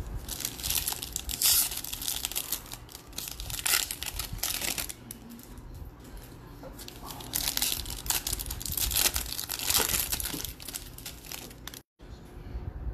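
Trading card pack wrappers crinkling and tearing as packs are ripped open by hand, in two spells of rustling, the second starting about halfway through.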